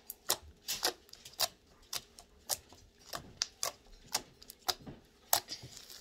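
Pink fluffy shaving-cream slime being pressed and folded by hand, giving a string of sharp, irregular clicks about two a second as air pockets in it pop.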